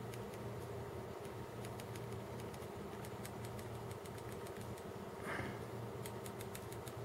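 Faint plastic clicks of buttons being pressed on a handheld pocket oscilloscope, scattered through and in a quick run near the end, over a steady low electrical hum. A brief soft hiss about five seconds in.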